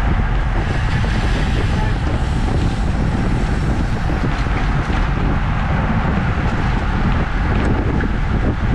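Steady wind noise over the microphone of a camera on a road bike riding at about 25 mph in a racing pack.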